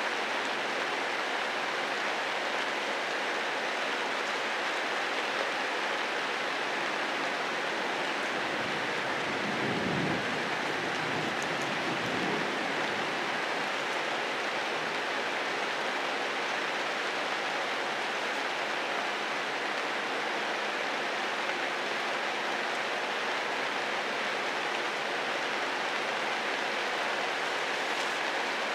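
Steady rain falling on forest foliage, an even hiss throughout. Two brief low rumbles come near the middle.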